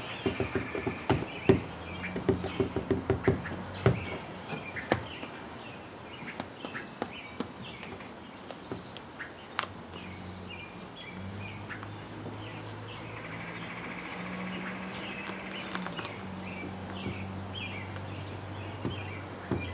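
Small birds chirping with short repeated calls. A run of sharp clicks and knocks comes in the first few seconds, and a low steady hum sets in about halfway through.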